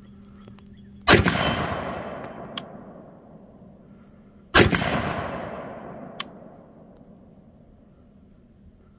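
Two rifle shots from a side-charging AR-15, about three and a half seconds apart, each trailing a long echo that fades over a few seconds. A faint click follows each shot.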